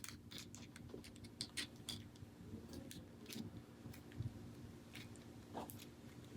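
Faint, scattered small clicks and light taps of a metal driveshaft and the RC crawler's drivetrain parts being handled and lined up, over a low steady hum.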